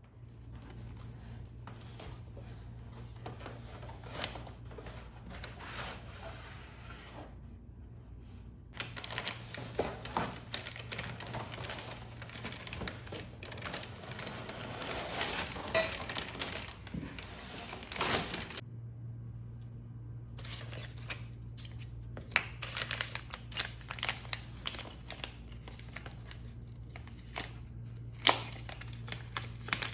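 Crinkling and rustling handling noises with many scattered clicks, over a steady low hum.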